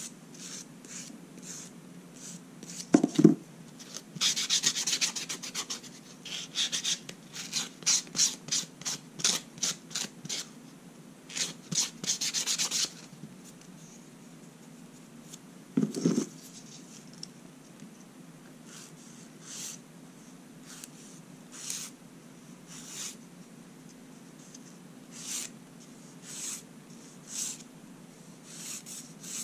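Rasping strokes of a nail file or buffer across fingernails: quick runs of strokes through the first dozen seconds, then single strokes about a second apart. A soft knock comes twice, and a steady low hum sits under it all.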